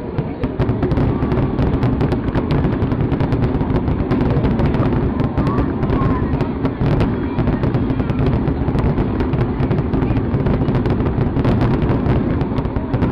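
Fireworks display: a dense, continuous barrage of bursts and crackles, many shots a second over a steady low rumble.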